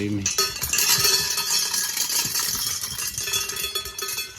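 Pet food bowls clinking, rattling and ringing as the animals eat at feeding time, with steady metallic ringing tones that hold for a second or more.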